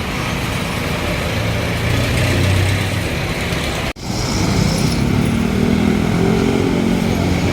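Road traffic noise, with a motor vehicle's engine running close by. The sound drops out abruptly for an instant about four seconds in, and after that the engine is louder and its pitch shifts slightly.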